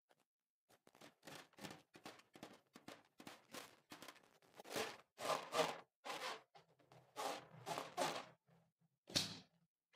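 Hands rubbing and squeezing a filled rubber balloon: an irregular run of short rubbing swishes, about two a second.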